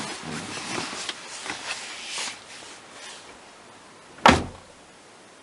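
Rustling and a few small clicks, then a car door shutting once with a sharp thump about four seconds in.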